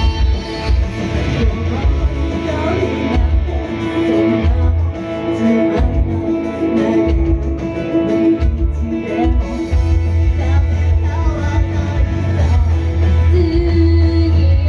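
Idol pop-rock song performed live: female group vocals over a rock backing with a heavy, pulsing bass.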